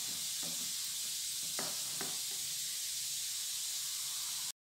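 Silicone spatula mixing boiled carrot pieces in a glass baking dish, giving a few soft taps and scrapes against the glass over a steady hiss. The sound cuts out suddenly near the end.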